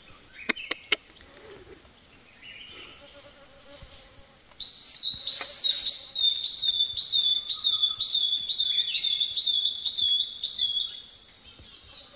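A few sharp clicks, then a loud whistled call that starts suddenly about four and a half seconds in and repeats about three times a second for some six seconds, each note hooked and the series slowly falling in pitch.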